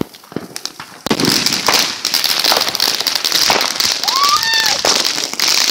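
Firework crackling: a dense, rapid run of small pops that starts about a second in and keeps going. A short cry from a person cuts through it about four seconds in.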